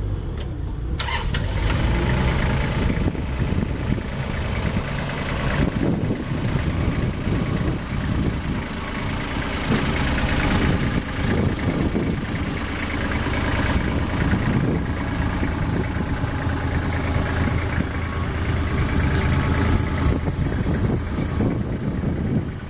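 Kubota L2900 compact tractor's three-cylinder diesel engine running, a steady low rumble whose level rises and falls a little every few seconds.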